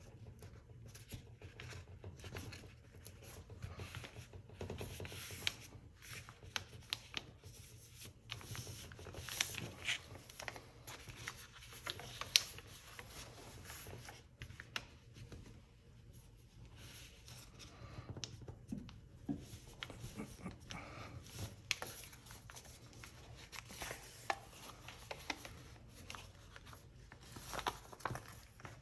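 A sheet of paper being folded and creased by hand into a paper airplane: soft rustling and handling with frequent short crackles as folds are pressed flat, the sharpest crackle about twelve seconds in.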